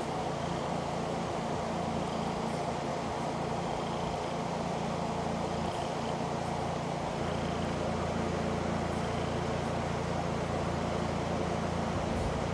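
Electric fan running steadily: an even rush of air over a low motor hum.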